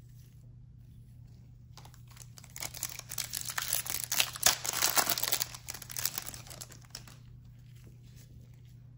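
Foil wrapper of a Topps Chrome trading-card pack being torn open and crinkled, starting about two and a half seconds in, loudest in the middle, and dying away about seven seconds in.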